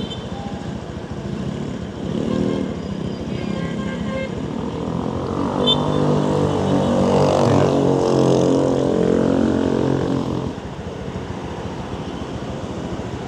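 Street traffic with a motor vehicle's engine passing close, loudest from about five to ten seconds in, then fading back into the general traffic noise.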